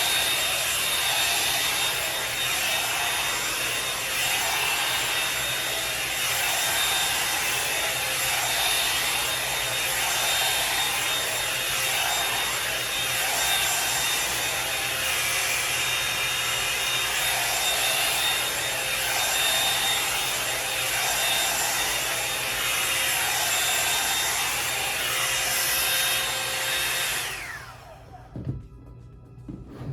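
Revlon One-Step hot-air brush dryer running steadily, a rush of air with a motor whine. About 27 seconds in it is switched off, and the whine falls away as the motor spins down.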